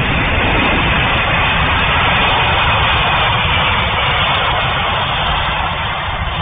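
Landing aircraft slowing on its rollout down the runway: a loud, steady engine rush with a heavy low rumble underneath.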